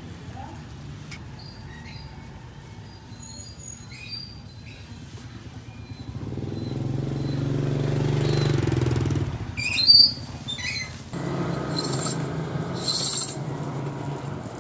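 A motorbike engine passes, rising and fading over a few seconds in the middle. Then a knife scrapes the rind off a long sugarcane stalk in short rasping strokes, about one a second.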